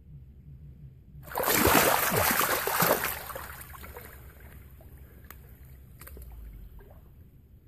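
An American crocodile lunging at raw meat and seizing it, a sudden loud splash and thrash of water about a second in that lasts about two seconds, then fades into softer sloshing. A few sharp clicks follow near the end.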